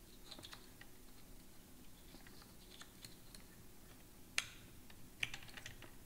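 Faint small plastic clicks and ticks as a wheel cap is turned against the hub of an iRobot Braava 380T robot mop's wheel to line up its three clips, with two sharper clicks a little past the middle.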